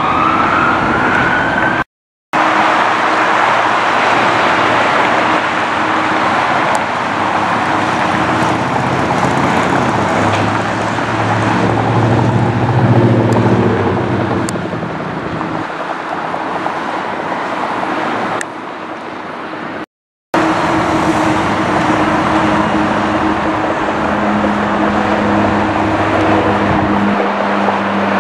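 Jet airliner engine noise: a loud, steady roar with a few low engine tones that shift in pitch. It is broken by two abrupt cuts between clips, about two seconds in and near twenty seconds.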